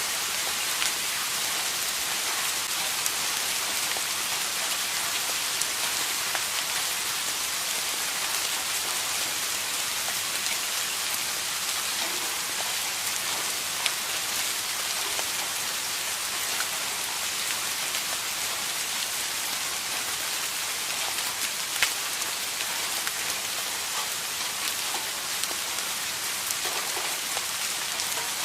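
Steady rain falling on a surface, an even hiss with the close ticks of individual drops; a few drops land louder, about 14 and 22 seconds in.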